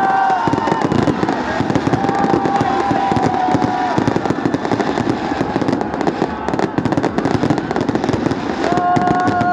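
Fireworks going off in a dense, continuous crackle of rapid pops and bangs. Three times, once near the start, once in the middle and once near the end, a steady whistle-like tone is held for about a second or two over the crackle.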